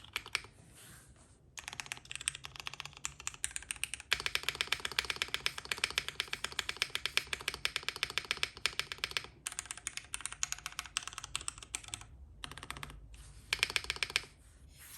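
Custom Bakeneko65 65% mechanical keyboard with lubed, filmed linear Cherry MX Black clear-top switches on an FR4 plate and PBT keycaps being typed on. Runs of rapid keystrokes broken by short pauses, with the densest, fastest typing in the middle and a short loud flurry near the end.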